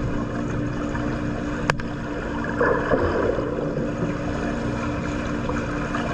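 Swimming-pool water splashing and sloshing, with a louder splash about two and a half seconds in and a sharp click just before it, over a steady low hum.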